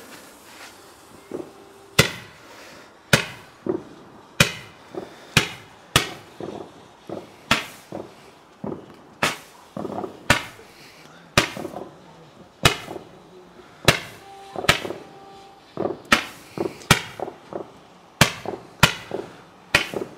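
A firework shooting a long series of sharp bangs, one to two a second, starting about two seconds in: a Roman candle or barrage firing shot after shot into the air.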